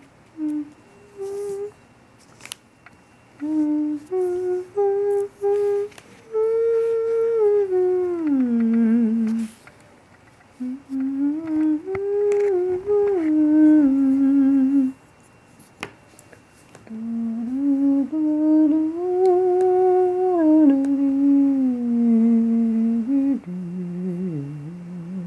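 A person humming a slow, wordless tune: short separate notes at first, then longer held notes that slide down in pitch, in phrases with short pauses between them. A few faint clicks show through.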